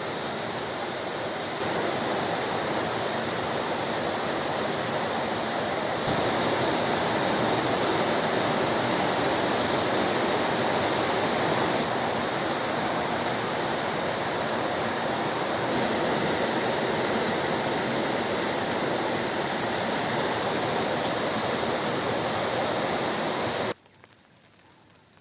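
Heavy thunderstorm rain pouring steadily, a dense even hiss. It gets a little louder a couple of times early on, then cuts off suddenly near the end, leaving only faint rain.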